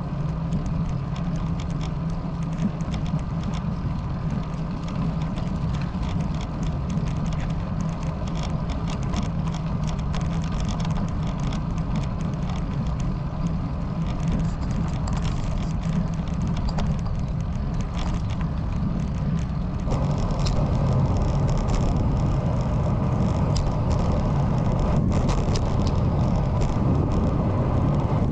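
Wind rushing over the microphone of a handlebar-mounted camera on a moving road bike, mixed with tyre noise on asphalt and scattered light ticks. The sound shifts and gets slightly louder about twenty seconds in.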